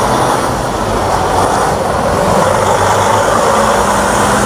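Steady rushing spray of water washing mud off a plastic toy truck cab.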